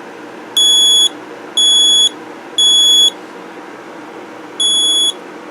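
Smoke alarm sounding on test: loud, high-pitched electronic beeps in the temporal-three pattern. Three half-second beeps about a second apart, a pause of about a second and a half, then the next round of beeps begins near the end.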